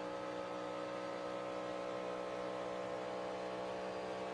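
NASCAR Cup car's V8 engine running at high, steady revs at racing speed, heard from inside the cockpit as a constant drone.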